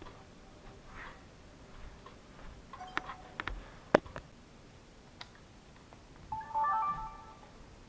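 Clicks and knocks as a small camera is handled and picked up, the sharpest about halfway through. Near the end comes a short electronic chime of several tones, under a second long.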